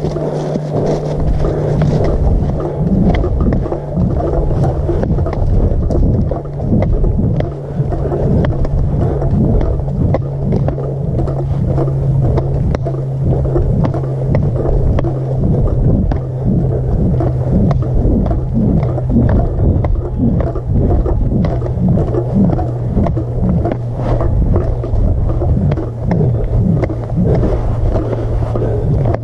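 Footsteps on a gravel forest road, about one to two a second, under heavy wind rumble on the microphone. A steady low hum runs underneath and slowly drops in pitch.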